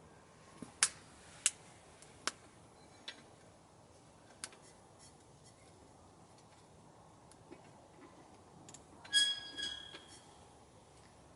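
Wood fire in a small camp stove crackling with sharp, widely spaced pops, then a brief metallic clink with a short ringing tone about nine seconds in.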